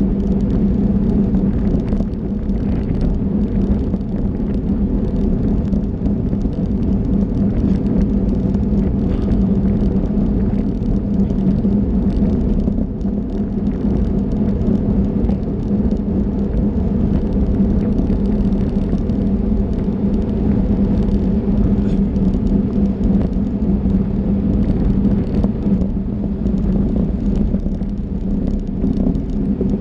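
Wind and road noise on a bicycle-mounted action camera riding in a road-race bunch: a loud, steady rumble with a constant hum under it.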